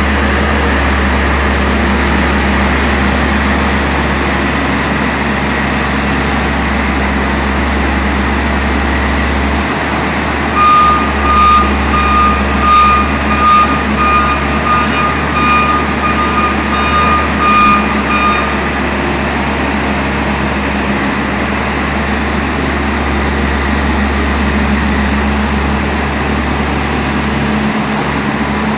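Case wheel loader's diesel engine running steadily under load, with a backup alarm beeping repeatedly for about eight seconds in the middle.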